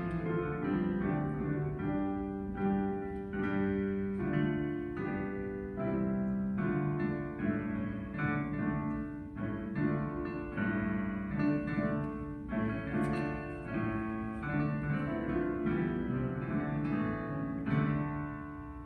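Piano playing a choral piece in a quick, steady rhythm, several notes sounding together in chords that change every fraction of a second.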